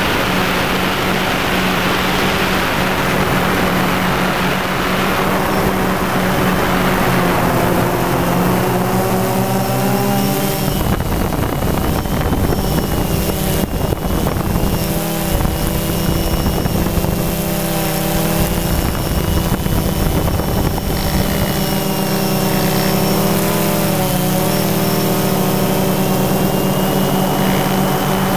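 DJI Phantom quadcopter's motors and propellers humming steadily, heard from the camera on the drone, with a steady high whine above the hum. Wind rushes over the microphone for the first third, and the pitch of the motors shifts twice, about a third of the way in and again near the end.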